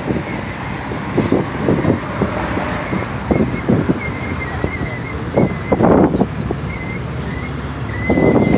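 Steady city street traffic noise with wind buffeting the microphone in irregular low bumps.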